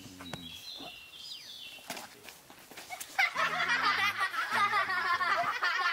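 Group of young children suddenly laughing and shrieking together, starting about three seconds in. Before that, faint bird chirps.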